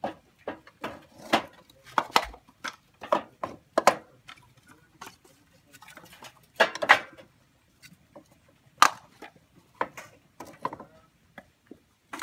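Dry coconut-shell halves knocking against one another and the basin as they are picked up and stacked: a run of irregular, hollow knocks and clicks.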